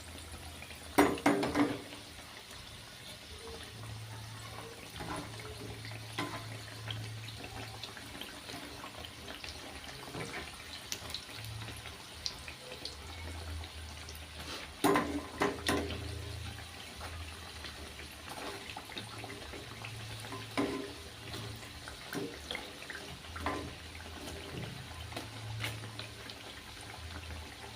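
Mandazi dough frying in hot oil, a steady sizzle, with a low hum underneath. Scattered clicks and knocks, the loudest about a second in and again around fifteen seconds in.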